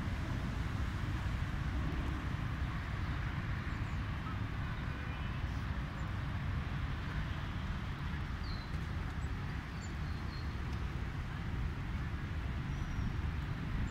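Outdoor park ambience: a steady low rumble with a few short, high bird chirps in the second half.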